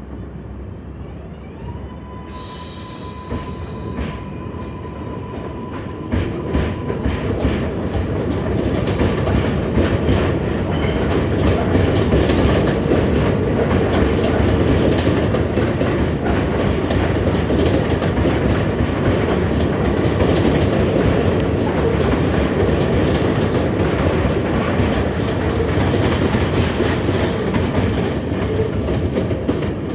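New York City subway train running over the rails, wheels clattering. It grows louder over the first eight to twelve seconds and then stays loud and steady. A thin steady whine sounds at first and fades out about nine seconds in.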